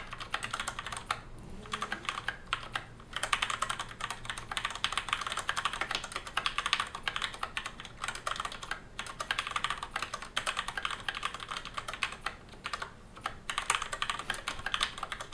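Continuous fast typing on a mechanical keyboard with Cherry MX Brown switches, a dense run of key clicks with a few brief pauses.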